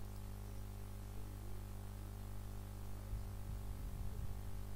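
Steady low electrical hum with a faint hiss, the mains hum of the recording setup, with a few faint low knocks about three seconds in.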